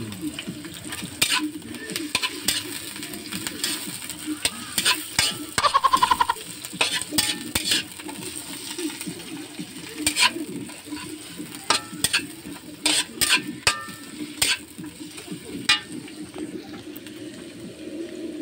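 A metal spatula scrapes and clanks against a wok as sliced onions and green onions sizzle in hot oil. The clatter comes in irregular strokes, with a dense, ringing burst about six seconds in.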